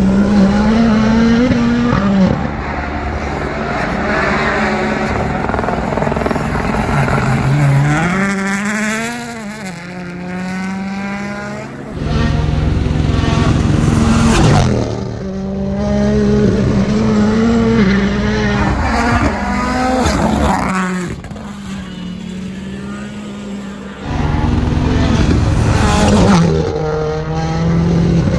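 Rally cars driven flat out on a stage, engines revving hard and rising and falling in pitch through gear changes as they pass, one car after another with abrupt switches between them about every twelve seconds.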